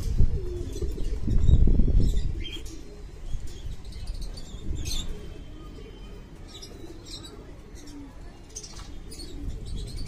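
Highflyer tumbler pigeons cooing, low and wavering, with a louder low rush of noise about a second in.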